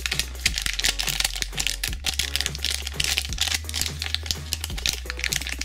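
Foil blind-bag wrapper crinkling and crackling in the hands as it is worked open, over light background music.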